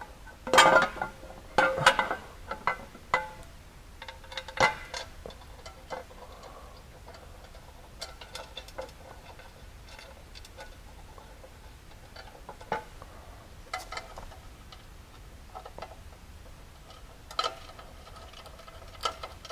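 Aluminum skid plate knocking and ringing against the UTV's frame as it is held up and fitted by hand. A few sharp clanks come in the first five seconds, then scattered small metal clicks.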